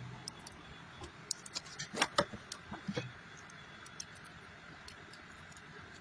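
Scattered light clicks and taps over a faint steady background hiss, the loudest cluster about two seconds in.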